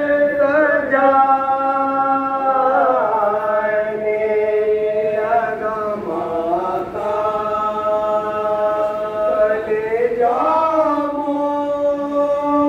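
A man's voice chanting a Muharram mourning lament in long held notes, high at first, dropping lower about three seconds in and climbing back up about ten seconds in.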